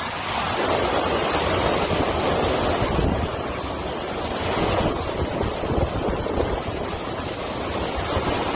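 Hurricane-force wind and driving rain blowing hard, rising and falling in gusts, with the wind buffeting the microphone.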